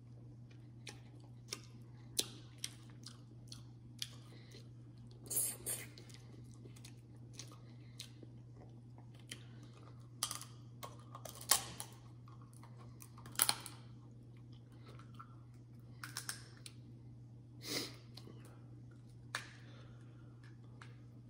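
Close-up eating of seafood-boil crab legs: irregular crunches and sharp shell cracks with wet chewing in between, the sharpest snaps about 11 and 13 seconds in, over a steady low hum.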